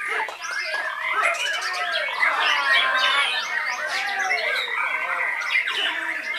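White-rumped shamas (murai batu) singing at once, a dense tangle of overlapping whistled phrases, sweeping glides and harsh notes.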